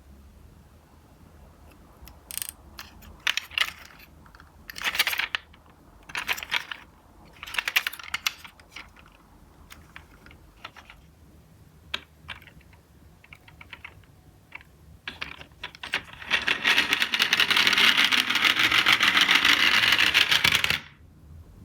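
Small die-cast toy cars clicking and clattering in several short bursts, then a dense, rapid rattle lasting about five seconds that stops suddenly.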